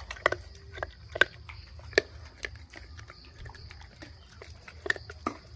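Gray langurs crunching dry chickpeas close by: irregular crisp clicks and cracks, a few sharper than the rest.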